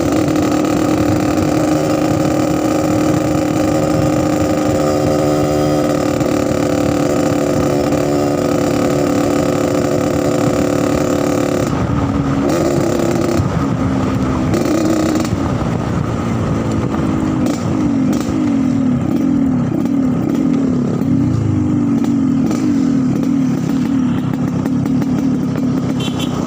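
Yamaha RX-King motorcycle's two-stroke single-cylinder engine with a 'snoring' (ngorok) exhaust note. It runs steadily for about twelve seconds, then is blipped in a run of short revs, about one a second, to the end.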